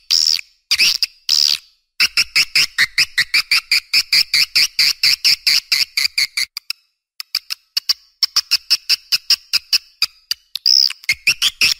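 Swiftlet calls played as a lure to draw swiftlets to a nest house: rapid trains of short, high chirps, about seven a second, broken by a few brief pauses. A few longer sweeping calls come near the start and near the end.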